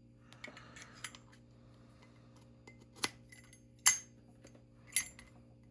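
Metal clicks of a Zippo lighter being handled as its insert is checked: a soft scrape, then three sharp metallic clicks about a second apart, the middle one the loudest.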